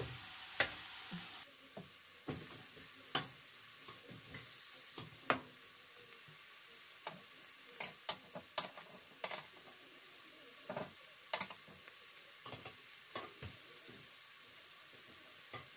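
Marinated pork chops and pork belly sizzling on an electric indoor grill: a steady hiss with irregular sharp pops and crackles.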